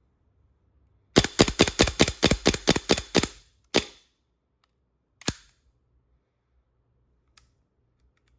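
Airsoft Desert Eagle pistol firing a rapid string of about a dozen shots, roughly six a second, then two single shots a second or so apart, and a faint click near the end.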